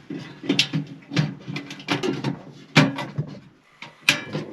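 Sliding window of a pickup truck's bed cap being worked open: a string of sharp clicks and knocks from its latch and frame with some sliding scrape between them, the loudest knocks late on, in a small enclosed space.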